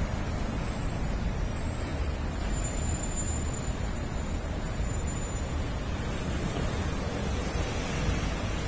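Wind buffeting the microphone in a steady low rumble over a wash of passing street traffic.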